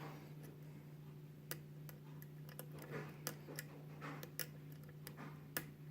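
Faint, irregular small metallic clicks of a lock pick working the wafers of a 5-pin wafer lock under tension, each click a wafer lifting or setting at the shear line, over a steady low hum.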